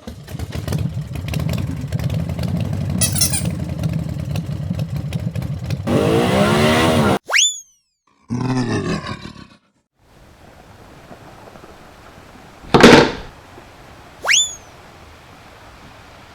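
A run of cartoon sound effects: a rumbling motor-like sound for about six seconds, then a sweeping swoosh, a quick rising pop, a short burst, a loud hit, and another quick rising pop near the end.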